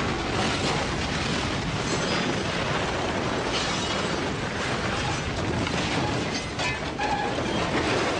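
Building fire in the aftermath of an explosion: a steady, dense rush of burning with scattered crackles and cracks.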